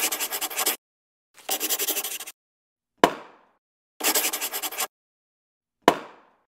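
Sound effects of a pen scratching quickly across paper, in three short bursts, with a sharp pop about three seconds in and another near the end.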